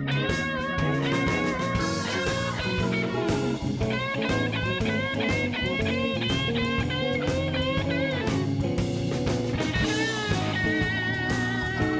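Background music: guitar-led rock with a blues feel, with bending lead-guitar notes over a steady beat.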